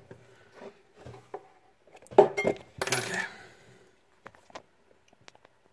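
Spatula prying apart taped-down pieces of freshly CNC-cut plywood: a few sharp clicks and knocks with a brief ring, clustered around two to three seconds in, then a few faint ticks.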